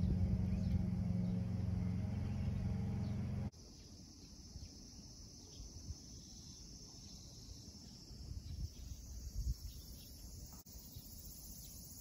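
A steady machine hum with several held low tones stops abruptly about three and a half seconds in. After it, faint high insect chirring with a few soft knocks.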